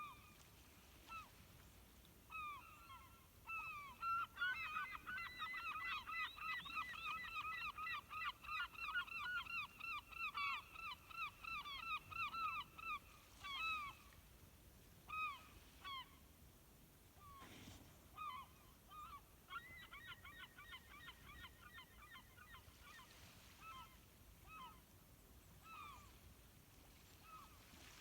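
A flock of birds calling, many short pitched calls overlapping into a dense chorus. The chorus thins out about halfway through, then a second, shorter bout follows, with scattered single calls after it.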